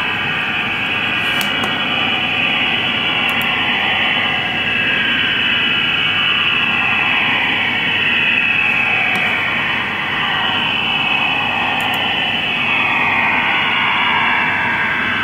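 STANAG 4285 military data-modem signal from IDR Rome on 6333 kHz shortwave, heard through the receiver: a steady, dense rushing noise with no breaks, wavering slowly as the signal fades.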